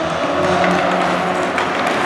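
Ice hockey arena sound during play just after a faceoff: a steady din of rink and spectators, with a held tone through most of it that fades near the end.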